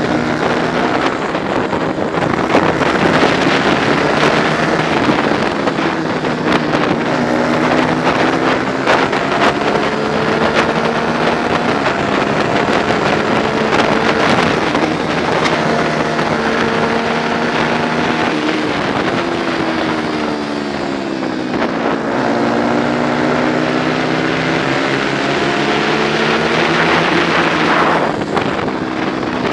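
Engine of a 125 cc four-stroke prototype racing motorcycle revving hard from an onboard camera, its pitch climbing and dropping with gear changes and braking. The pitch dips lowest about two-thirds of the way through before climbing again. Wind noise on the microphone runs underneath.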